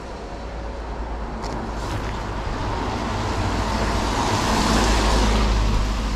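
A car passing on a wet road: tyre hiss swells to a peak about five seconds in, then begins to fade, over a steady low rumble.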